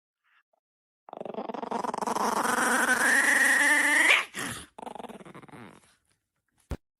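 A dog growling in one long, drawn-out grumble of about three seconds that grows louder and rises in pitch into a brief whine at its end, followed by a couple of shorter, quieter growls.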